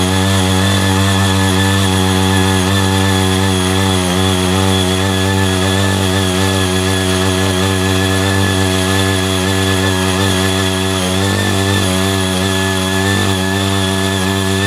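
Small engine of a CY80 mini power tiller running steadily under load as its rotary tines till a fallow paddy field.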